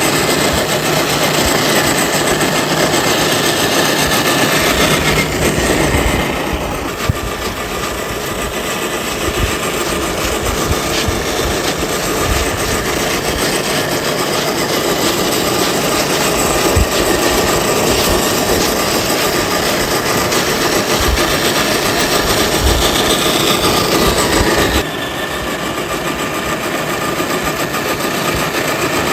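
Radio-controlled FMS Toyota Land Cruiser FJ40 scale crawler driving: its electric motor and gears whir steadily, easing off about six seconds in and again near the end, with scattered low thumps.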